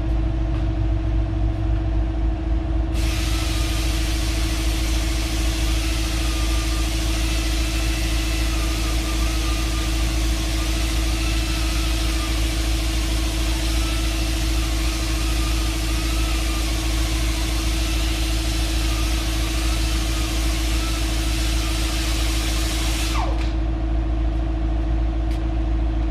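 A power grinder runs for about twenty seconds, grinding down the top of a brake pad so it will slide into the caliper bracket. Its pitch dips and wavers under load, and it winds down near the end. A steady low hum sounds throughout.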